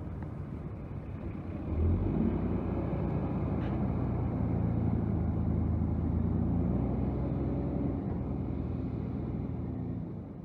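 Distant EMD SD40N diesel locomotive's 16-cylinder two-stroke engine rumbling as it hauls the train away. It grows louder about two seconds in, with a slightly rising engine tone, then fades near the end.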